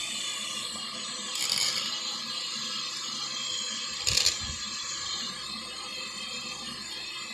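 Steady background hiss with a faint hum, and two brief rattling handling noises, about one and a half seconds and four seconds in.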